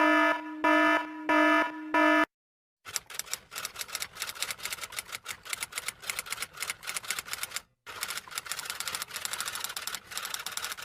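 Four short buzzy electronic beeps, then a long run of rapid typing clicks, typewriter-style, with a brief pause near the end.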